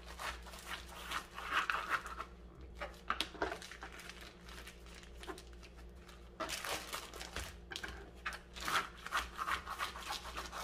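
Plastic bag crinkling and rustling as it is handled, in two spells with a quieter gap in the middle.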